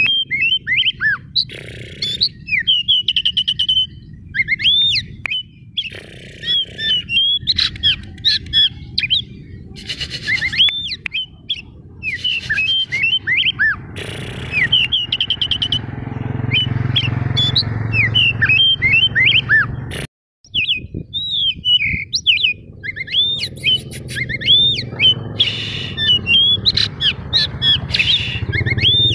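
Oriental magpie-robin (white-bellied kacer) in full song: a fast stream of sharp rising-and-falling whistles mixed with harsh chattering notes. The song breaks off for a moment about twenty seconds in.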